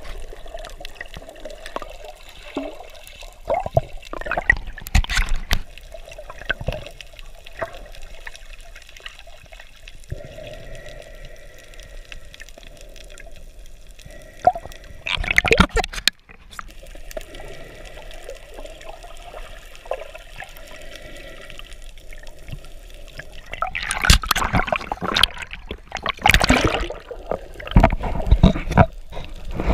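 Water sloshing and bubbling around a camera held underwater, muffled, with loud bursts of splashing and bubbles a few seconds in, around the middle, and several times near the end.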